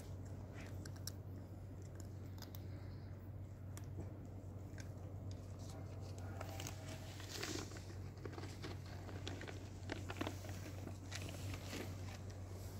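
Cats crunching dry kibble: a run of small irregular crunches and clicks, busier in the second half, over a steady low hum.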